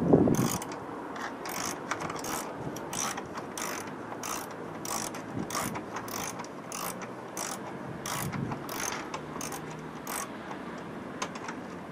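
Hand ratchet spanner clicking in a steady run of short strokes, about two sharp clicks a second, as bolts are worked while an engine box is fitted to a catamaran's transom.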